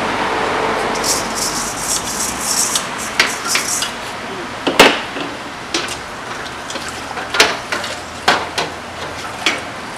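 Stainless steel colander being scrubbed with a dish brush over a galvanized bucket of soapy water: a bristly scrubbing hiss from about one second in to nearly three seconds, and sharp clanks of the metal colander being handled throughout, the loudest about five seconds in.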